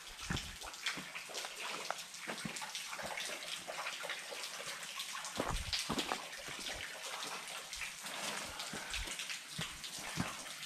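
Water dripping and trickling off a rock overhang, many small irregular drips and splashes over a light steady hiss of running water.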